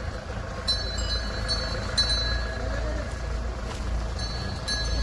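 Steady low rumble of outdoor street noise from traffic, with faint voices and a few short high-pitched chirps.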